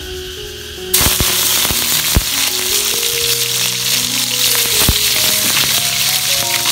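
Pieces of tilapia frying in hot oil in a wok: a loud sizzle starts suddenly about a second in as the fish goes into the oil, with a few sharp pops of spattering oil.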